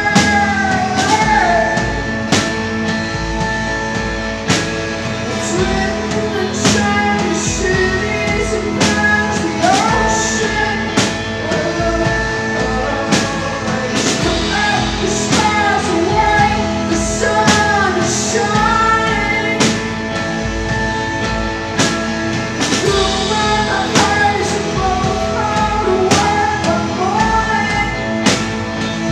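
Live rock band: a woman sings long, gliding lines over electric guitars and a drum kit, with drum hits about once a second.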